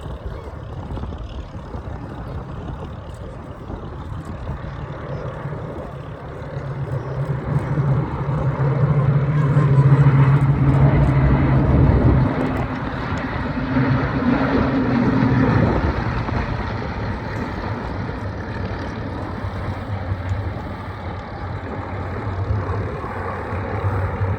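Rolls-Royce Merlin V12 engines of Hawker Hurricanes running at low power as the fighters move past close by. The engine note swells to its loudest around ten seconds in, changes pitch, then settles to a steadier drone.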